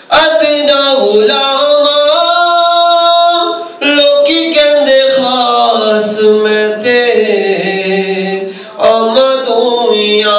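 A man singing a naat, an Islamic devotional song, unaccompanied into a microphone, with long held, ornamented notes. He breaks briefly for breath about 4 and 9 seconds in.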